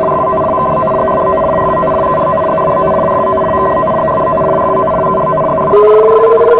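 Electronic emergency alert tone: several steady pitches sounding together. Near the end a louder tone cuts in and slides steadily upward in pitch.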